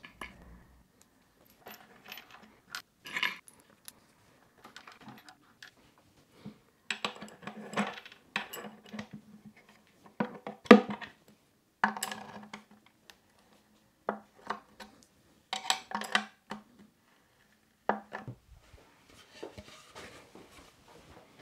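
Screws clinking in a wooden tray and wooden chair parts knocking and clattering as a wooden chair is screwed back together, in short separate bursts with the loudest knock about eleven seconds in.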